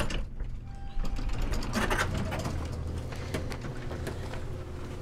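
Passenger lift running and its sliding doors opening: a steady low mechanical hum with clicks and a rattle about two seconds in.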